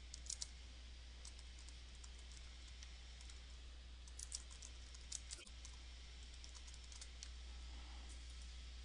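Faint computer keyboard typing: scattered key clicks in small clusters as text is entered, over a steady low hum.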